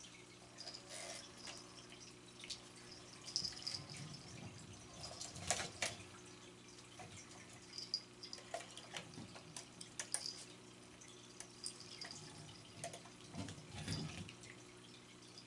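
Scattered light clicks and taps as cats bat a cat toy with a green plastic egg-shaped base and a feather wand on a tile floor, with a louder clatter about five seconds in and again near the end. A steady low hum runs underneath.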